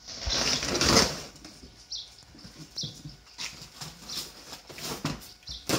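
Cardboard packaging scraping and rustling as a plastic mower body and cardboard inserts are pulled about in their box: a loud scraping rush lasting about a second near the start, then scattered light knocks and rustles.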